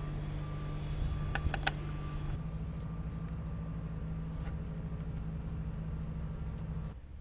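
A motor vehicle engine running steadily with a low hum, with a few light clicks about a second and a half in. The engine sound cuts off abruptly near the end.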